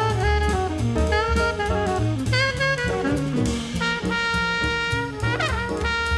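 Background music: an upbeat jazz track with saxophone and brass over a drum kit.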